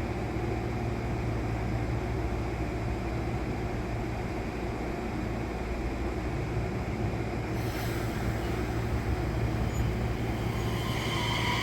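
Electric commuter train on the Nishitetsu Tenjin Ōmuta Line running at a station, a steady low hum and rumble; near the end higher steady tones come in and it grows louder.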